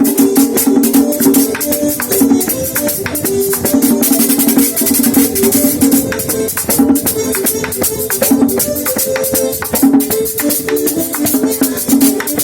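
Instrumental merengue music: fast, steady rattling percussion and drums driving under a sustained melody line.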